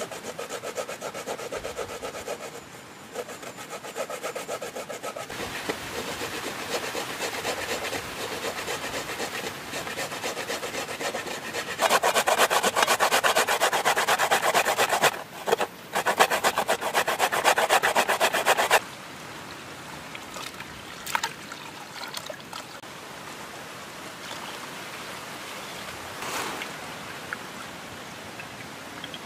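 Coconut being grated by hand on a metal box grater into a metal pot: fast, even rasping strokes, louder from about 12 seconds in, stopping about 19 seconds in. After that only a quieter steady hiss with a few light clicks.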